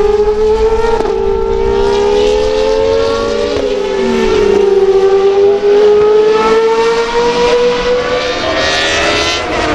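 Naturally aspirated Formula 1 engine running at high revs. Its pitch climbs slowly and drops sharply about three and a half seconds in and again at the end, like upshifts, and a second engine note overlaps in the first few seconds.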